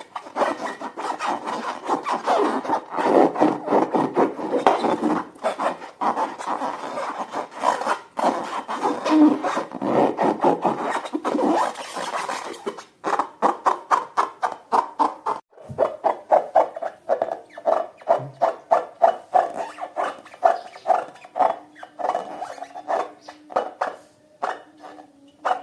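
Slime being stirred and scraped in a bowl: continuous rubbing, squishing and scraping, giving way about halfway through to quicker, regular short sticky clicks.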